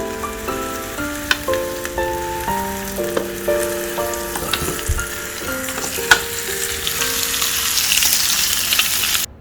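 Food sizzling and frying in a hot waffle iron, the hiss growing louder near the end, with a few sharp clicks, over light background music.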